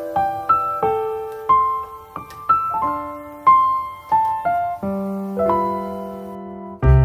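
Background music: a gentle piano melody in single struck notes about twice a second, settling on a held low chord near the end.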